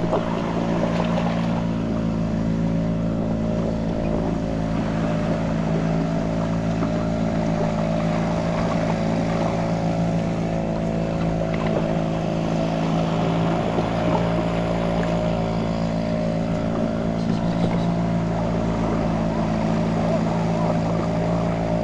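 Small boat's engine running steadily at a constant speed.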